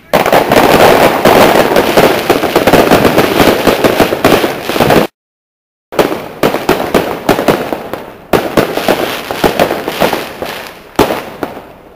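Aerial fireworks display: a dense run of rapid crackling bangs, broken near the middle by a gap of dead silence lasting under a second. The crackling then resumes and thins out toward the end.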